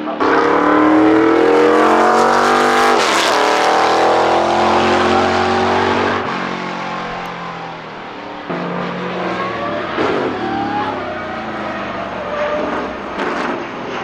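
McLaren M8E Can-Am car's 7.2-litre V8 racing engine at full throttle, its pitch climbing as it accelerates and dropping as it passes, twice.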